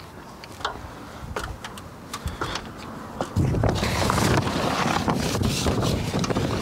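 A few light clicks and rustles, then about three and a half seconds in, wind buffeting the microphone in a loud, steady rush.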